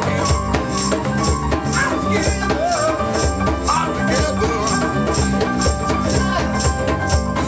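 Rock band music with a steady beat of bass and drums. High percussion hits come about twice a second under held tones and a wavering lead line.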